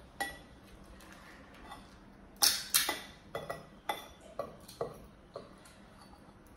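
A string of sharp clacks and clinks of seafood shells and utensils against dishes during a seafood boil meal. Two loud ones come close together about two and a half seconds in, followed by lighter ones about every half second.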